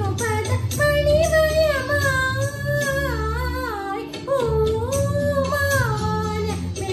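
A woman singing a slow romantic song in a high voice, holding long notes with wavering, gliding ornaments, over a steady instrumental backing track.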